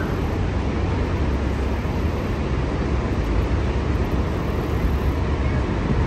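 Steady rushing of Niagara Falls, an even, deep noise that does not let up.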